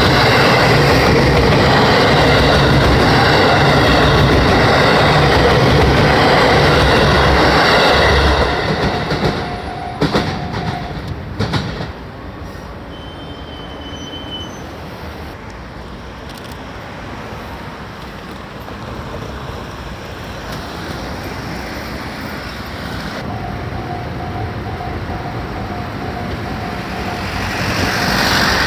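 A JR West limited express train runs over a level crossing, loud for about the first eight seconds and then fading away. The crossing's warning bell rings a moment longer and stops. About twenty-three seconds in the bell starts ringing again, and train noise builds near the end.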